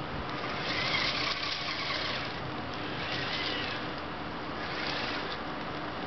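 Wowee Tribot toy robot's small electric drive motors and gears whirring as it rolls and turns, the whine rising and falling in pitch a few times.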